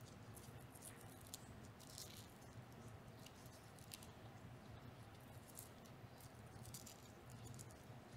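Near silence: faint crinkling and light clicks from gloved hands pressing an adhesive surgical dressing into place, over a low steady hum.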